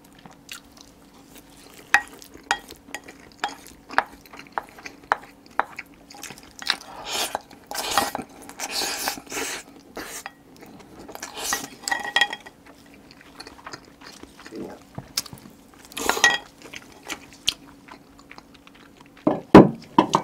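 Chewing of rice and marinated crab, with chopsticks clicking and scraping against a ceramic rice bowl as rice is shovelled into the mouth. Short clicks come all through, with longer scraping stretches in the middle.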